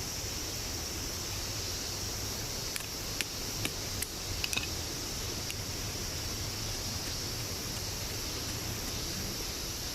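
Steady rush of a mountain stream, with a handful of small sharp clicks about three to five seconds in.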